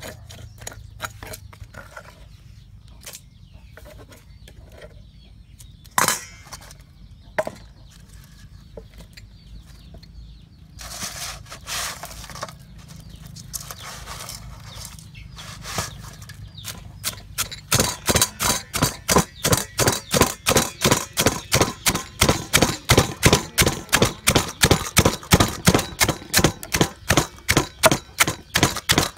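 Scattered clicks and clatter of crab shells and a metal spoon being handled, then, from a little past halfway, a wooden pestle pounding small crabs in a wooden mortar with steady, even thuds about three a second.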